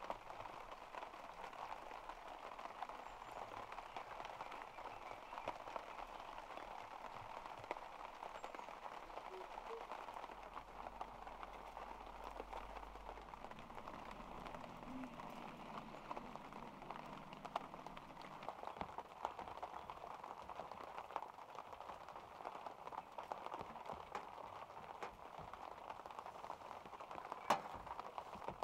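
Steady light rain pattering, a dense haze of fine drop ticks. A sharp knock comes near the end.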